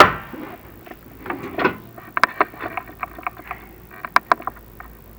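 Chimney inspection camera being fed down a flue, knocking and scraping against the flue: a loud knock at the start, then scattered clicks and taps, with sharper knocks about two seconds in and again around four seconds.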